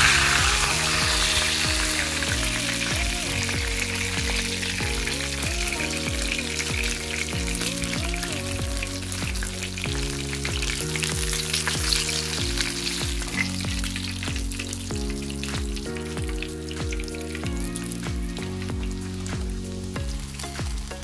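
Hot oil sizzling and crackling around whole fish frying in a pan, strongest at the start and easing off toward the end. Background music plays underneath.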